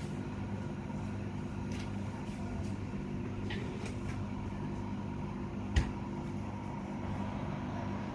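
Meaco 12-litre dehumidifier running with a steady hum and fan hiss. A single sharp click or knock sounds about six seconds in.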